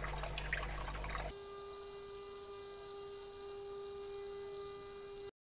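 Water trickling and dripping as hatched brine shrimp drain from the hatching bottle through a fine strainer. About a second in, the sound changes abruptly to a steady hum over the water, and it cuts off suddenly near the end.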